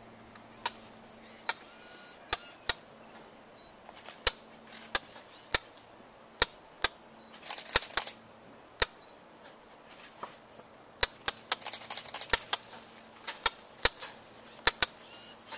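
Camera shutters from several cameras clicking irregularly, a few dozen single sharp clicks, with two brief denser flurries around the middle and about three-quarters through.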